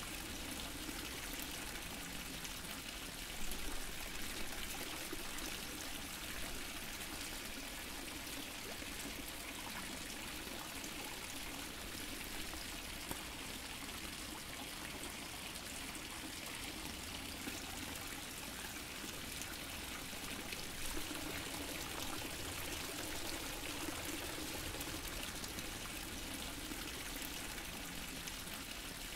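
Water fountain splashing and trickling steadily, with now and then a slightly louder splash.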